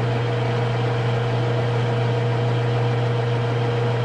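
Weiler DA 260 engine lathe running under power with the spindle turning in its high speed range: a steady low hum from the motor and headstock gearing, with a fainter steady higher tone above it.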